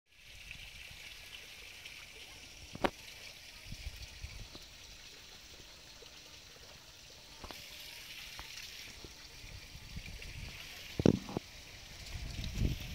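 Faint outdoor background hiss, steady throughout, with a sharp click about three seconds in and a louder double knock about eleven seconds in.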